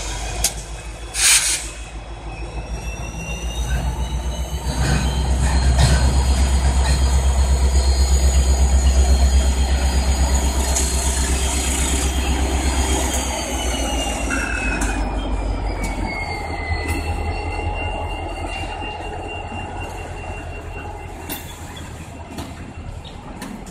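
Norfolk Southern EMD SD40-2 locomotive's 16-cylinder two-stroke diesel rumbling as it pulls boxcars past, loudest through the middle. Steel wheels squeal in long high tones, one of which falls in pitch about two-thirds of the way through. Occasional clicks come from wheels over rail joints.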